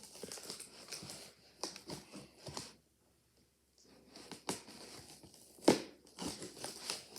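Packing tape on a box being cut with a knife and torn, with crinkling and scraping in irregular bursts, a short pause partway through, and a sharp knock near the end.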